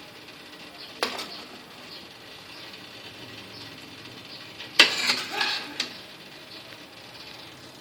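Kitchen handling sounds: a single knock about a second in, then a short clatter of kitchenware a little before the end, over a quiet room background.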